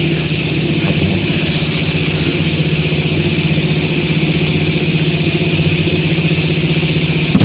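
Steady hum of a running motor, with a strong low tone and a high hiss above it, holding level without change.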